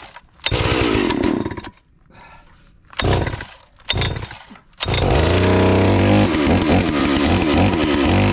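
FarmMac F380W 72cc two-stroke chainsaw being cold-started: the pull cord is yanked a few times in short rasping bursts, then the engine catches about five seconds in and keeps running.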